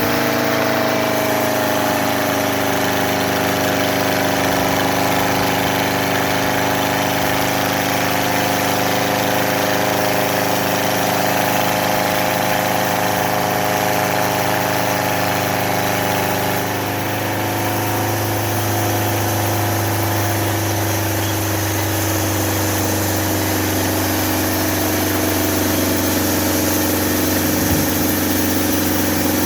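Engine of a homemade sawmill with a 2-inch blade running steadily, slower than normal. The engine note shifts about halfway through.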